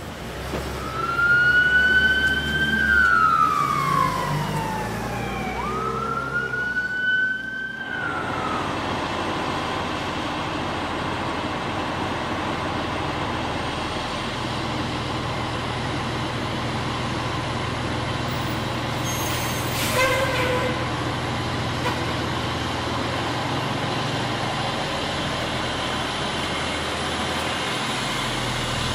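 Ambulance siren wailing in a few slow rising and falling pitch sweeps for the first several seconds. Then the steady running of a ladder fire truck's diesel engine as it pulls out, strengthening about halfway through, with one short sharp sound around two-thirds of the way in.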